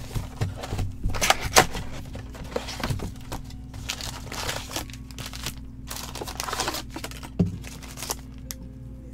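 Plastic shrink wrap and cardboard packaging of a sealed Panini Select baseball card box crinkling and tearing as it is unwrapped and opened, in a run of irregular rustles, with one sharp knock about seven seconds in.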